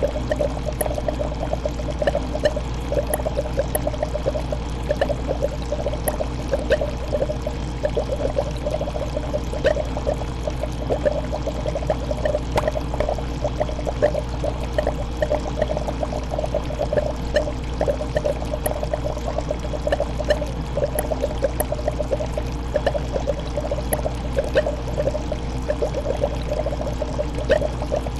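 Aquarium water bubbling and gurgling steadily in a dense patter of small splashes, over a steady low hum.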